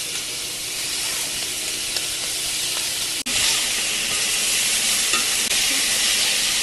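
Scallops sizzling as they sear in a hot cast iron skillet, a steady frying hiss. About three seconds in it breaks off and comes back as a louder sizzle.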